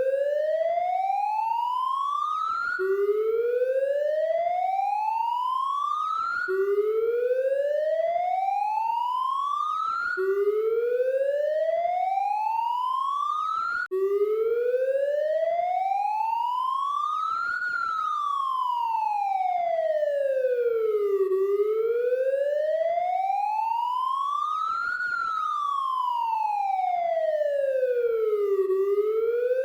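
Police siren sounding continuously. For the first 14 seconds or so it makes repeated slow upward sweeps, each dropping back abruptly about every four seconds; after a brief break it switches to a slow wail that rises and falls about every seven seconds.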